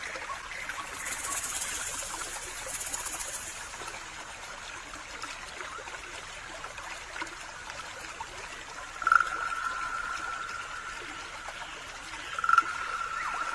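Outdoor ambience with a steady trickling, water-like hiss and a high hiss in the first few seconds. Two long, steady whistled notes come in, one about nine seconds in and another near the end, each starting with a sharp loud onset.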